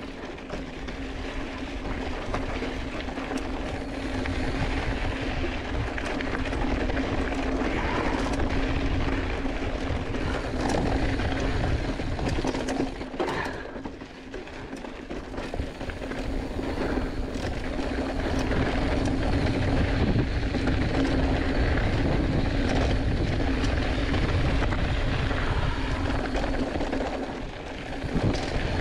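Giant Fathom 2 hardtail mountain bike riding fast over dry dirt and gravel singletrack: tyres rumbling on the trail, the bike rattling over stones, and wind buffeting the chest-mounted camera. The noise eases briefly about fourteen seconds in.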